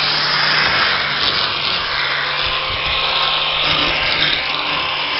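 Electric angle grinder running against the sheet-metal body of a 1977 Opel Kadett C, grinding at rusty patches by the rear wheel arch. It makes a harsh, continuous grinding hiss over a steady motor hum, and the grinding swells and eases as the disc is pressed to the metal.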